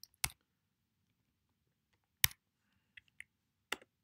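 About six separate keystrokes on a computer keyboard, sharp single clicks at uneven intervals, the loudest about two seconds in: quotation marks being typed into a line of code.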